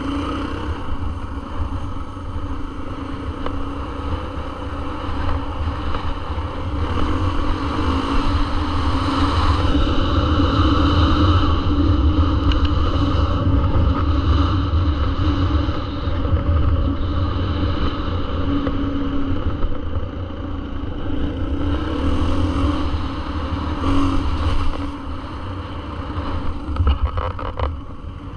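Dirt bike engine running under way on a trail ride, its pitch and loudness rising and easing as the throttle changes, with wind rumbling on the microphone.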